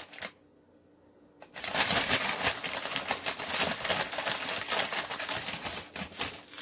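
Brown paper bag rustling and crinkling as it is handled and opened, a dense run of small crackles that starts about a second and a half in after a brief near-silent gap.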